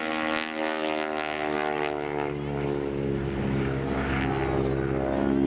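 Aerobatic biplane's piston engine and propeller running overhead, a steady engine note that wavers in pitch about midway as the plane manoeuvres.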